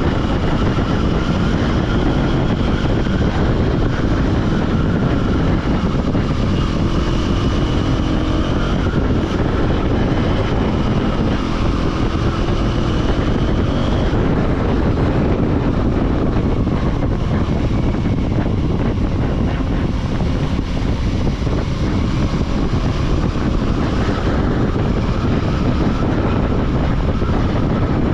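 2024 KTM Duke 390's single-cylinder engine running steadily while the motorcycle is ridden, its pitch wavering slightly, with wind rushing over the microphone.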